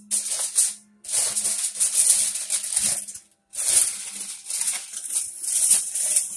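Aluminium foil crinkling and rustling as it is handled over the oven's roasting pans, in three long bursts.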